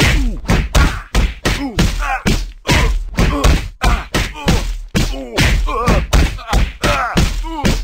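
A sound effect of rapid repeated hits, about two a second, each with a short pitched tone that bends in pitch.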